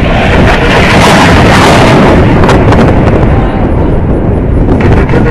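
Boeing F/A-18 Hornet jet in a full-afterburner turn. It gives a loud, crackling roar that runs close to the microphone's limit. The hiss in the roar fades somewhat about three and a half seconds in and returns near the end.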